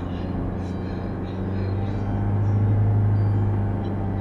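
Car engine and road noise heard from inside the cabin while driving: a steady low drone that grows louder about two seconds in and eases off near the end.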